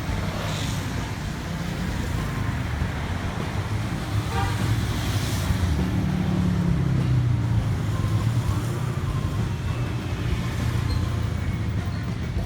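Road traffic rumbling past, swelling as a vehicle goes by around the middle, with a short horn toot about four seconds in.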